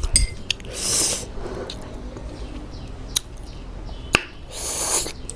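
Close-miked eating sounds: sharp lip smacks and mouth clicks, with two short hissing slurps, one about a second in and one near the end.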